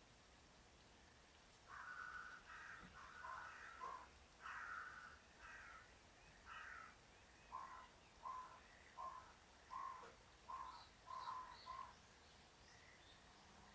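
A crow cawing, faint, as if from outside. The calls begin about two seconds in, with a few longer caws first and then a string of shorter, evenly spaced caws, about one and a half a second, that stop near the end.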